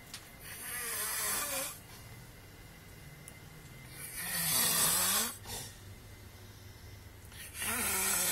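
Loud snoring from a sleeper: three long, rasping snores about three and a half seconds apart, with quieter breathing between them.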